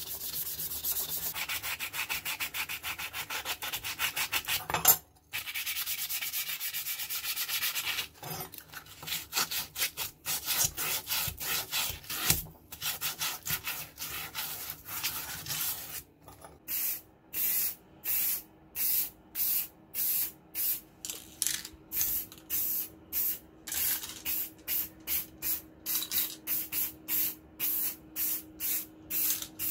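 Sandpaper rubbed by hand over the steel blade and handle of old scissors in fast back-and-forth strokes, with a brief pause about five seconds in. From about sixteen seconds in, short hisses of an aerosol spray-paint can follow one another about once a second.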